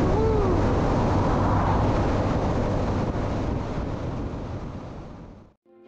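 Wind noise on the microphone mixed with motorcycle engine and road noise while riding at speed, steady and then fading out shortly before the end.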